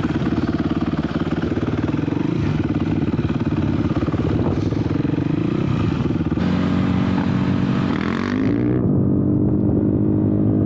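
Dirt bike engine running as the bike rides off, its pitch shifting about six seconds in and again a couple of seconds later as it changes speed.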